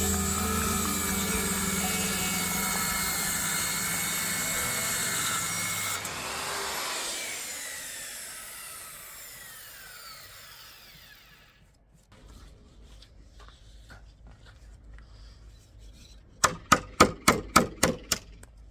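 A power tool runs and then winds down after being switched off, its pitch falling over several seconds. After a short quiet spell, a quick run of about eight sharp strokes on wood, about four a second.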